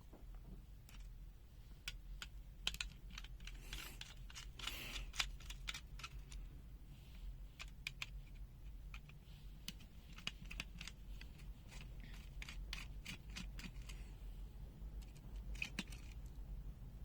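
Scattered small clicks and brief scrapes of plastic being handled: a Smart Sensor ST833A digital multimeter's case being prised open and its parts moved about.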